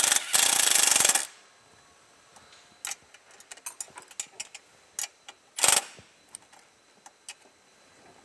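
Cordless impact tool hammering a bolt tight in quick bursts, about a second of rapid impacts near the start and a shorter burst about two thirds of the way through. Small clicks and taps of tools on metal come in between.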